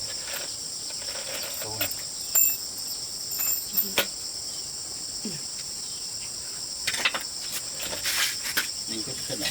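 A steady, high-pitched insect chorus chirring without a break, with a few scattered knocks, the loudest about two and a half seconds in.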